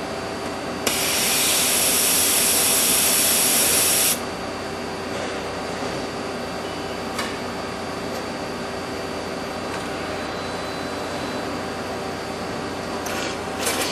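Compressed air hissing on a CNC surface grinder over its steady running hum: a loud blast starts about a second in and cuts off sharply about three seconds later. Faint clicks of the machine follow.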